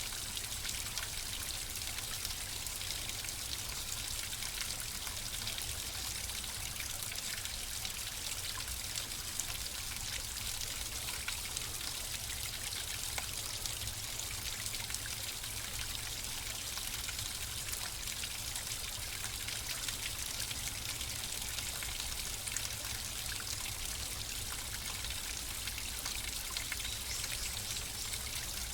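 Water flowing steadily, with fine splashing and trickling over a low rumble.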